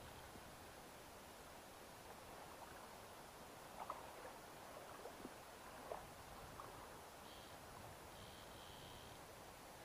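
Near silence: a faint steady hiss, a few soft clicks around the middle, and brief faint high tones near the end.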